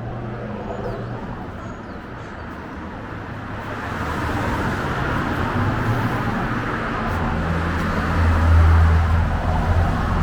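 Street traffic: road noise swells from about four seconds in as a vehicle approaches, and passes with a low engine hum, loudest near the end.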